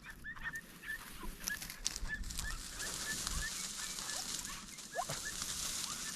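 A hunting dog giving rapid, short high-pitched yelps, several a second. A steady hiss swells under them through the middle.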